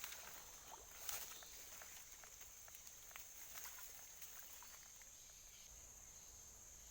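Faint forest ambience: insects droning steadily at a high pitch, with a scatter of faint small clicks and ticks during the first few seconds.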